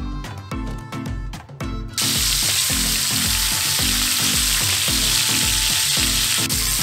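Lamb loin fillets sizzling in hot oil in a cast-iron skillet, a loud, even hiss that starts suddenly about two seconds in. Background music with a steady beat plays underneath.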